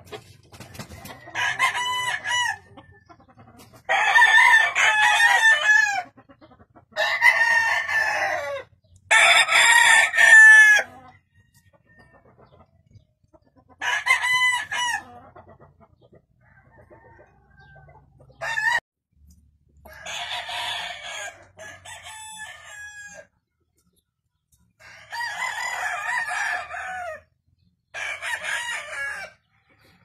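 Roosters crowing one after another, about nine crows of one to two seconds each, separated by short pauses.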